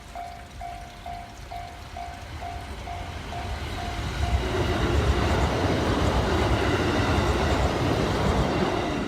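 Japanese level-crossing warning bell dinging about twice a second. From about four seconds in, a JR East E129 series electric train passes over the crossing, and its running noise grows loud and drowns out the bell.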